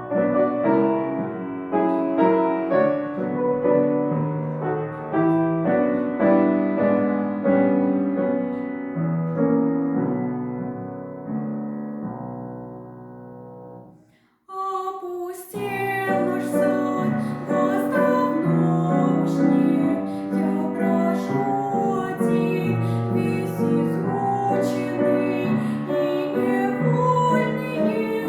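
Piano playing a slow romance accompaniment that fades out about halfway through. After a brief silence the music starts again, brighter, with crisper plucked or struck notes.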